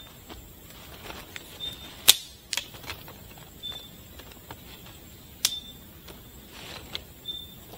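Scattered sharp clicks and knocks, the two loudest about three and a half seconds apart, with a few short high-pitched chirps in the background.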